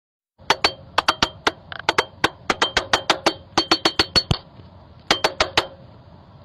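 A run of sharp taps on a hard surface, several a second in irregular bursts with short pauses between them, over a faint steady hum.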